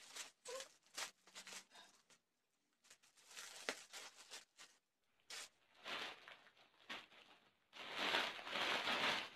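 Plastic courier mailer bag being torn open and handled: scattered short crackles and rips at first, then a louder spell of crinkling near the end.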